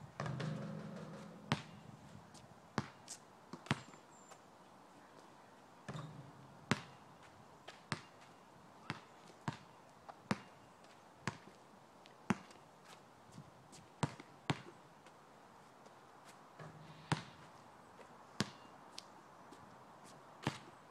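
A basketball bouncing on asphalt: single sharp bounces with gaps of a second or more, and short runs of quicker dribbles. At the start the ball strikes the hoop with a ringing clang that lasts about a second.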